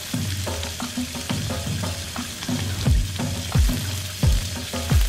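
A steady crackling hiss under background music with a low bass line; from about three seconds in, deep electronic drum hits with a falling pitch come about one and a half times a second.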